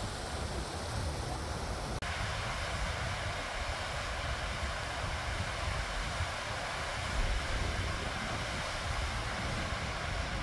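Wind buffeting the microphone in low gusts over a steady rushing hiss of open outdoor air, with an abrupt change in the sound about two seconds in.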